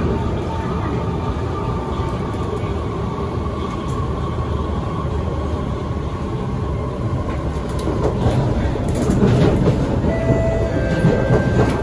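Cabin noise of a Kawasaki Heavy Industries C151 metro train running along the track: a steady rumble with a faint whine that falls slowly in pitch. From about eight seconds in the rumble grows louder with wheel clicks, and near the end short high steady tones from the train's GTO traction equipment sound.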